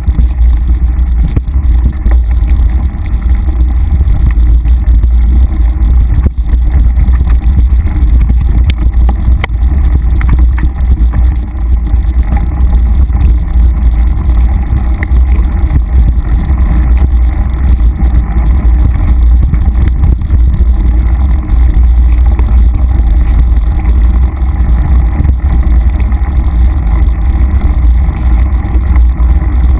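Loud, steady low rumble of wind buffeting and ride vibration on a handlebar-mounted camera's microphone as a mountain bike rolls along a dirt singletrack, with small knocks and rattles from the rough trail.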